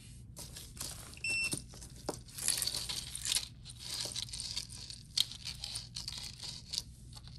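Costume jewelry being handled: metal chains and pieces clinking and tapping, with rustling. One small metallic ping rings out about a second in.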